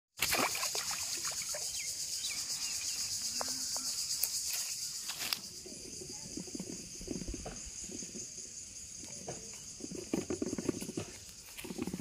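A steady high-pitched insect chorus, loudest for the first five seconds and fainter after. In the second half come soft footsteps and rustling through grass.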